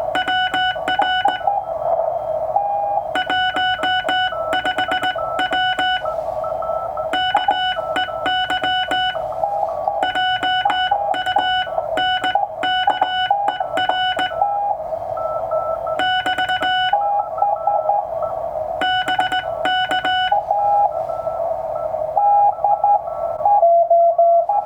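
Morse code (CW) from a Ten-Tec Century/21 transceiver: a tone keyed on and off in dots and dashes, with several overlapping CW signals at slightly different pitches. Brighter, clicky bursts of keying come and go every few seconds.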